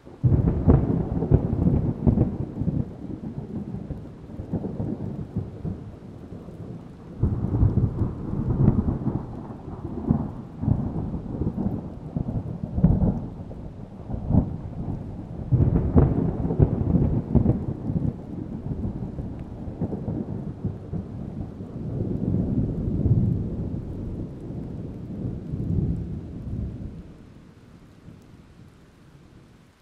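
A thunderclap breaking suddenly, then rolling thunder that rumbles and crackles in several swells before fading away near the end.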